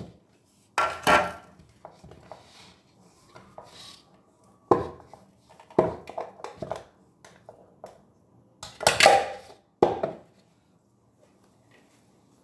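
Clear plastic food processor bowl and lid being handled on a counter: about half a dozen separate knocks and clatters as it is opened and the dough is lifted out.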